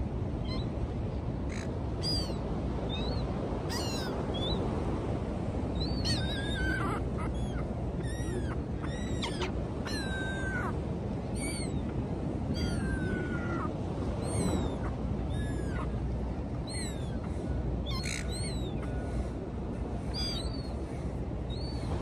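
Gulls calling again and again in short cries, several falling in pitch, over a steady rush of wind and surf.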